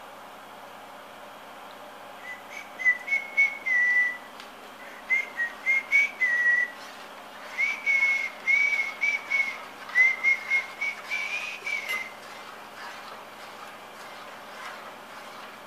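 Metal spoon squeaking against the bottom of a stainless steel saucepan during stirring: a high, whistle-like squeal that wavers slightly in pitch. It comes in short repeated pulses with faint scraping clicks, starting about two seconds in and stopping a few seconds before the end.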